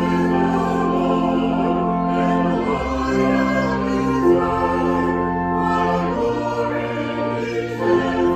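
Slow church music: sustained chords over a held bass note, the harmony changing every few seconds.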